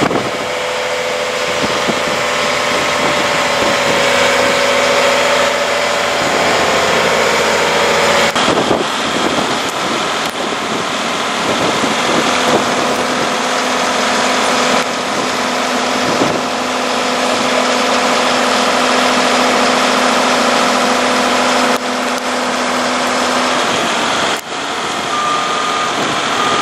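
Large excavator's diesel engine running steadily, with a steady tone over it that drops lower partway through.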